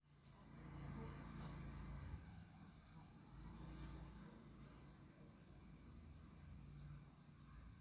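Faint, steady, high-pitched insect trill, continuous throughout, over a low rumble.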